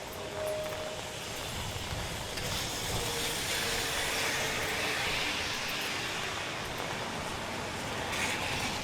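A car passing on a wet street, its tyres hissing on the rain-soaked road; the hiss swells a few seconds in and eases off, over steady rain noise.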